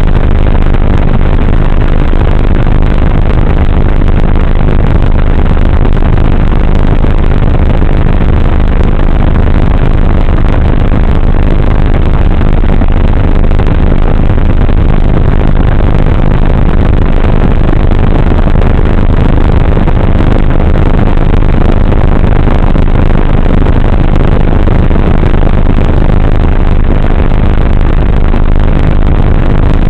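The RC plane's motor and propeller running steadily with wind rush, picked up by the onboard camera's microphone. Loud and unbroken, with a steady low hum under the noise.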